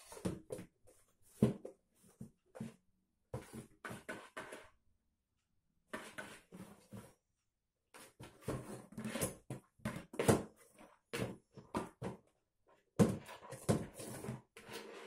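A cat batting and pushing a small cardboard box around on a laminate floor: irregular clusters of scuffs, taps and knocks, broken by two short pauses, with the sharpest knocks about a second and a half in, near the middle and near the end.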